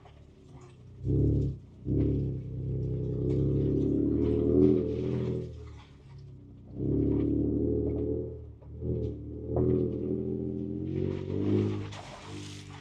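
Ford Ranger Raptor's 3.0-litre twin-turbo V6 heard from inside the cab while crawling a rough trail, the throttle opened and eased in repeated surges of a second or two, the engine note rising and falling.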